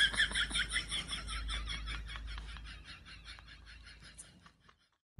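Rapid high-pitched chirping, about six chirps a second, growing fainter and sparser over about four seconds and then stopping.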